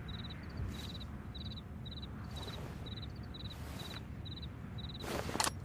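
Cricket chirping steadily, short pulsed chirps at a high pitch about twice a second, over low background hum. About five seconds in, a few clicks and handling noise from the Ithaca 37 pump shotgun.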